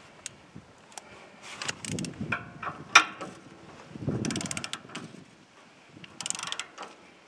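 Blade-tension T-handle on a Woodland Mills HM126 bandsaw mill being cranked by hand to tighten the band blade. Scattered sharp metallic clicks, then two bursts of rapid clicking about four and six seconds in.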